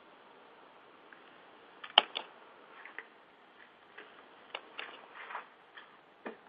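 Computer mouse clicks as slides are skipped: one sharp click about two seconds in, then several fainter clicks and taps near the end, over a low line hiss through a telephone-quality connection.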